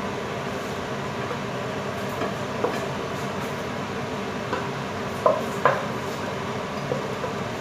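A spatula scraping and tapping against a metal frying pan as the cooked shrimp are scraped out, with scattered clinks and two sharper knocks a little past five seconds in, over a steady background hum.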